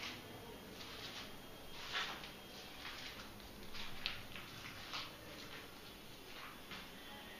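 Faint, scattered rustles and soft scrapes in a quiet room, about half a dozen short ones, the loudest about two and four seconds in.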